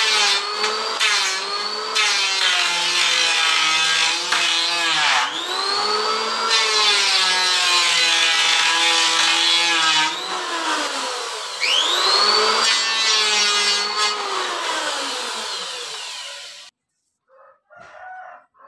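Electric wood planer running and cutting. The motor's pitch dips each time the blades bite into the wood and recovers between passes. It stops near the end.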